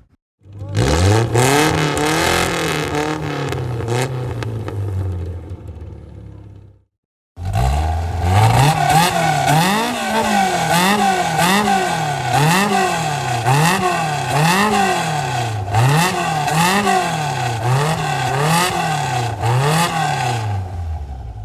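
Two separate car engine recordings. The first engine revs up once and then slowly winds down over about six seconds. After a short gap, a second engine is revved over and over, its pitch rising and falling about once a second.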